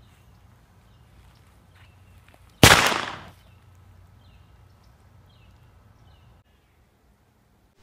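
A single loud shot from a toy foam-dart blaster, a sharp gunshot-like bang about two and a half seconds in that dies away over most of a second, over faint outdoor background with small chirps. The sound cuts out to dead silence near the end.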